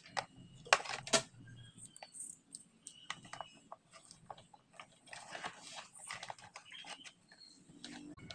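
Scattered light clicks and knocks of hands handling hard plastic parts and a cable coil on a metal workbench, with two sharper knocks about a second in.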